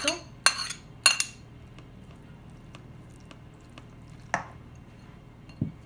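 Two ringing clinks as a small bowl knocks against the rim of a stainless steel mixing bowl while diced tomato is tipped into pasta salad, then quiet, with a single spoon click against the bowl past the middle and a soft thump near the end.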